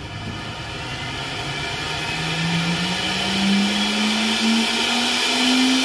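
CNC router spindle motor, driven by a newly replaced VFD, spinning up: its whine climbs steadily in pitch and grows louder as the drive ramps the spindle toward its set RPM.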